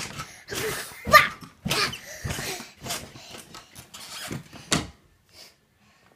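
A toddler making a string of short, breathy vocal sounds and squeals in quick succession, trailing off about five seconds in.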